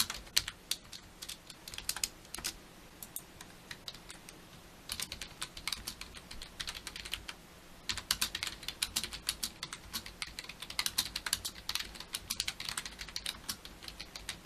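Typing on an M200 backlit membrane gaming keyboard: rapid, irregular key clicks in bursts, with a short pause of a couple of seconds early on. Its keys are fairly loud for a non-mechanical keyboard.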